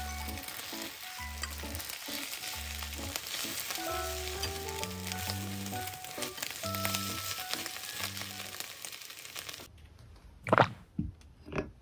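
Beaten egg and Korean zucchini rounds sizzling in a frying pan as they are stirred with chopsticks, under background music. About ten seconds in, the sizzling stops and two sharp knocks follow as a pot is set down on the table.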